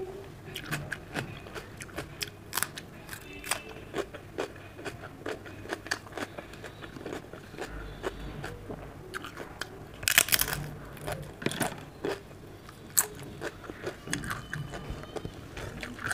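Close-up eating sounds: chewing and mouth clicks over mouthfuls of dal and rice, with a short run of loud crunches about ten seconds in as a crisp papad is bitten.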